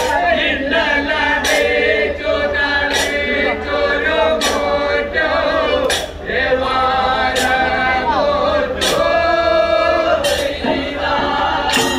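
Group of men singing a Kanyarkali folk song together, with a sharp percussion strike about every second and a half.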